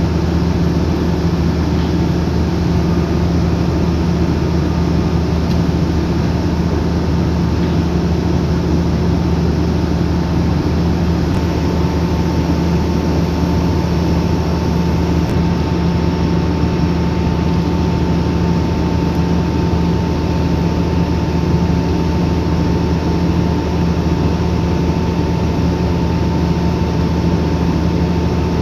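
Heavy bulldozer diesel engine running steadily under load while pulling up a slope. A thin steady whine above it grows stronger about twelve seconds in.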